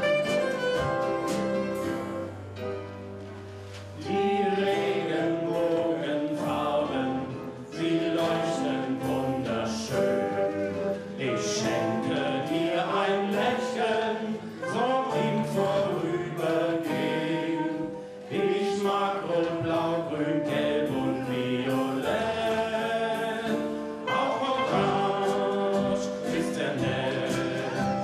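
A song sung by several voices together over instrumental accompaniment, with a short quieter passage a few seconds in.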